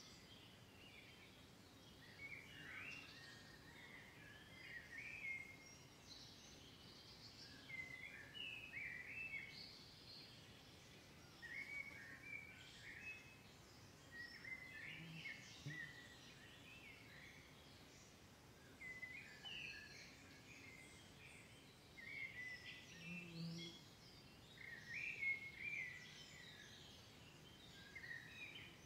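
Hot oil frying pirozhki in a pan: faint, irregular clusters of crackling and spattering that come and go every second or two.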